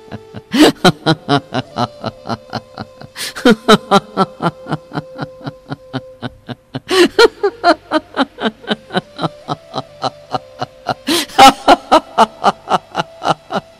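A man laughing at length in four bouts. Each bout opens loudly and runs on in quick, rhythmic 'ha-ha' pulses, about four or five a second, over soft background music with a held tone.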